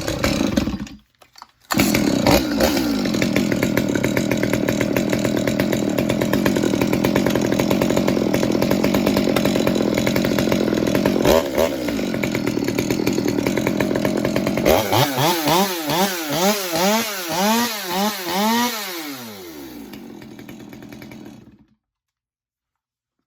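A STIHL MS 200T top-handle chainsaw, a small two-stroke, runs steadily for a long stretch. It is then revved up and down several times before it slows and stops.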